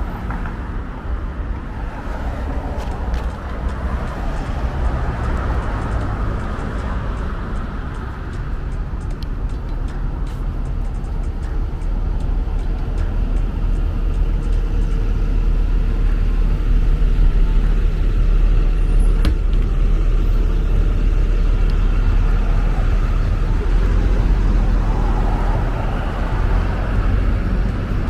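City street traffic passing close by: cars and heavier vehicles with a low rumble that swells through the middle and eases near the end.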